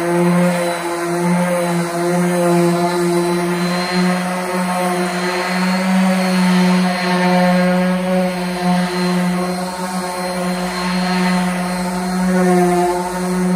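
DeWalt random orbital sander running steadily while being worked over a wooden tabletop: a constant motor hum whose pitch wavers slightly as the pad is pressed and moved across the wood.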